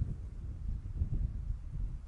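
Wind buffeting the microphone: an uneven low rumble that swells and dips, with a small bump right at the start.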